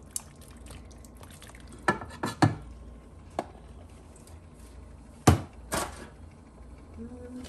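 Cookware clattering: a plastic mix-and-chop tool knocked against a metal stockpot and set down on the counter, then a disposable aluminium foil pan handled on the counter. A handful of separate sharp knocks, the loudest about five seconds in.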